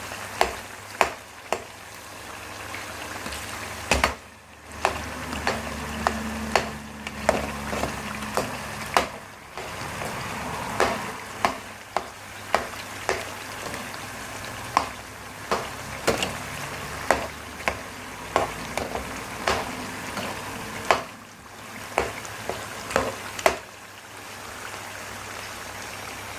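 Potatoes frying in hot oil with a steady sizzle, while a spoon stirring them knocks sharply against the pan over and over, at irregular intervals of about a second.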